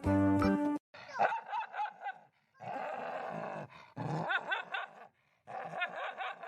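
A dog barking and yapping in quick runs of short barks, about four a second, with growly stretches between. A loud, steady pitched tone lasts just under a second at the very start.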